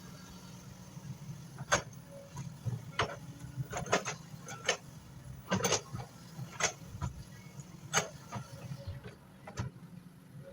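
Excavator diesel engine running steadily, with about ten irregular sharp knocks or clacks over it.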